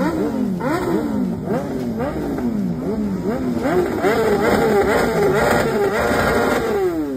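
Superbike engines revved hard on the stand: the throttle is blipped about twice a second, each rev rising sharply and falling back. About four seconds in the revs are held high and wavering, then drop away near the end.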